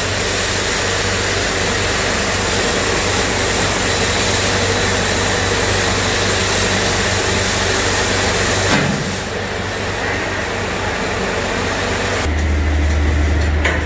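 Fume-extraction fans running steadily with a constant hiss and a low hum. About nine seconds in the hiss drops away, and a louder, deeper hum comes in near the end.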